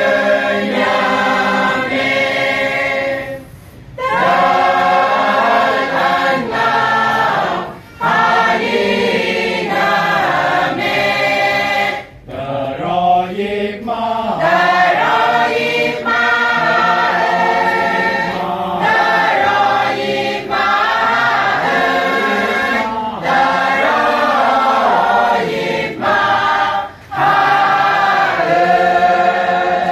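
A women's choir singing together, in phrases broken by short pauses every few seconds.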